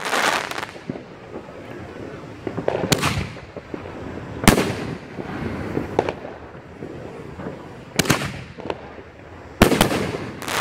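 A Shogun 'Ready To Strike' 500-gram, 9-shot consumer firework cake firing. There are four loud bangs spaced a second and a half to three and a half seconds apart, and each one trails off in echo.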